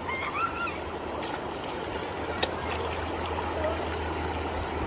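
Stream water rushing steadily over rocks in a fast current. A short high call is heard near the start, and a single sharp click about halfway.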